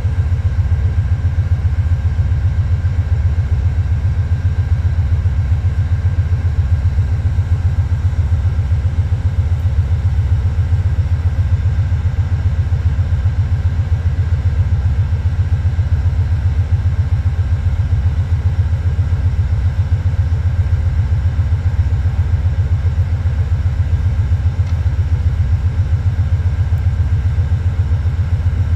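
Diesel locomotive engine idling, a steady low throb with a fast even pulse that does not change.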